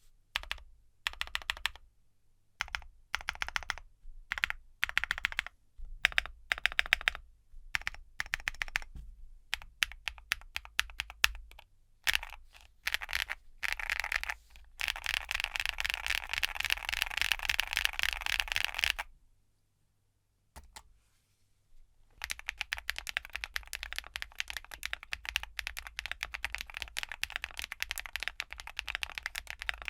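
Typing on a QwertyKeys QK75 custom mechanical keyboard with Geon Black linear switches and Domikey Vintage keycaps, a somewhat clacky sound. Short runs of keystrokes with pauses give way to fast continuous typing, which stops for a few seconds and then starts again.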